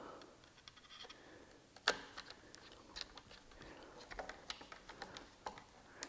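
Scattered light clicks and taps of small screws and door-handle parts being handled while the screws are readied with thread-locker, the sharpest click about two seconds in.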